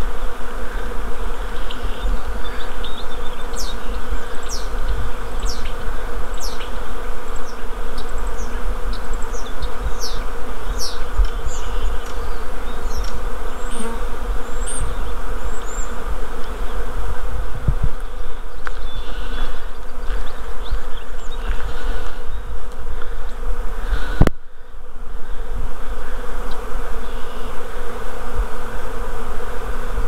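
Honeybee swarm in flight: a dense, steady buzz of many bees over a low rumble, with short high chirps through the first half. A sharp click comes about two-thirds of the way through, and the buzz dips briefly after it.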